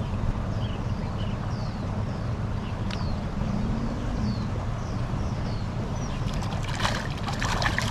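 A small bird repeating short, high, downward-sliding chirps over a steady low rumble of wind on the microphone, with a brief burst of crackling rustle near the end.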